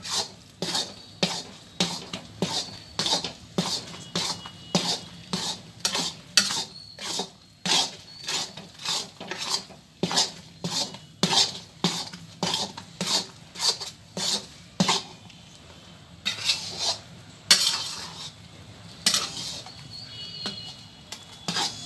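Metal spatula scraping and stirring ground fresh coconut against a metal pan, about two strokes a second, with a brief slower patch after the middle. The coconut and milk are being roasted until the mixture dries out.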